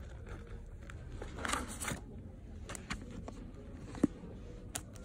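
Hardcover books being handled on a display table: a rustling slide about a second and a half in, then a few light knocks, the sharpest about four seconds in, as a book is picked up against the others. A low steady hum runs underneath.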